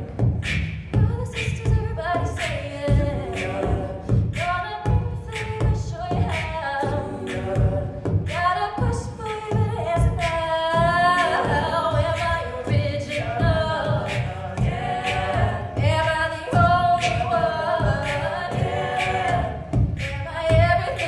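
A women's a cappella group singing in close harmony over a steady beatboxed beat of about two hits a second.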